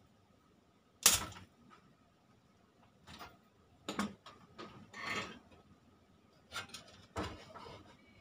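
Spring-loaded desoldering pump firing once with a sharp snap about a second in, sucking solder off a resistor's joint on an amplifier circuit board. A scattering of softer clicks and knocks follows as tools and the board are handled.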